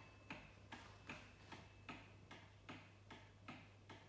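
Antique New Haven Jerome steeple mantel clock's pendulum movement ticking softly and evenly, about two and a half ticks a second.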